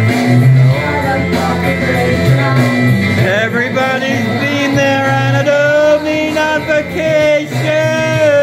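Karaoke: singing into a shared handheld microphone over an amplified backing track, with long held notes from about three and a half seconds in.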